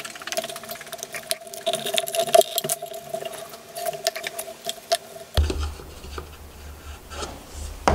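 Thin wooden boards being handled and fitted together: quick light clicks, taps and scrapes of wood on wood. Under them a steady background tone cuts off about five seconds in, giving way to a low hum.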